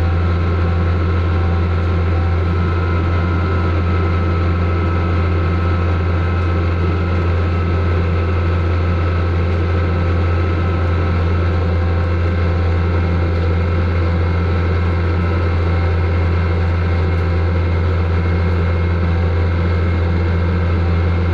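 Asphalt paver's diesel engine running at a steady speed, a constant low drone with no change in pitch or level.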